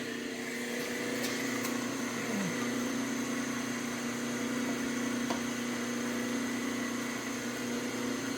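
Snap-on EEBR300A disc and drum brake lathe's electric motor running steadily with an even hum, with a few light clicks.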